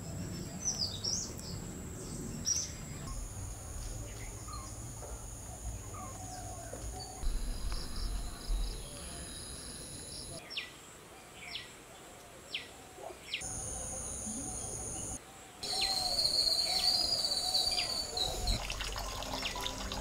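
Birds chirping and calling over a steady high-pitched insect drone. The background changes abruptly several times. A run of short falling chirps comes in the middle and a longer warbling call near the end.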